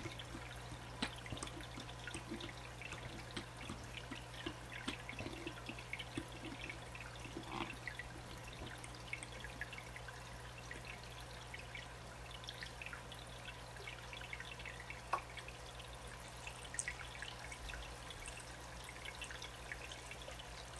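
Faint dripping and trickling water with small plastic clicks and taps from fitting the pump head and hose onto a canister filter, over a low steady hum.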